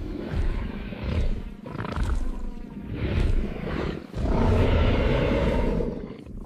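Dinosaur roar sound effect: a run of deep, rough roars in several swells, the longest and loudest starting about four seconds in, cut off abruptly at the end.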